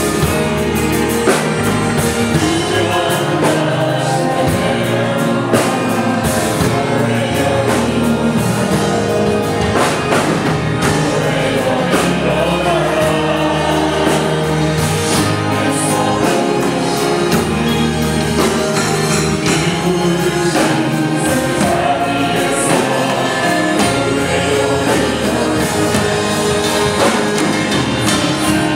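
Korean praise song performed live: lead vocalists on microphones sing over a choir, accompanied by a band with drum kit, double bass, acoustic guitar and gayageum.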